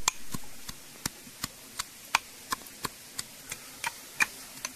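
A steady series of sharp taps or knocks, about three a second, evenly spaced.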